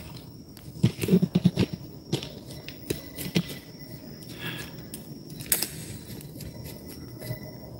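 Scattered knocks and clicks, a quick run of them about a second in and a few more later, over a faint steady high whine.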